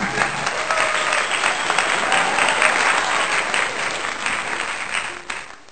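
Applause sound effect: a crowd clapping steadily, fading out near the end.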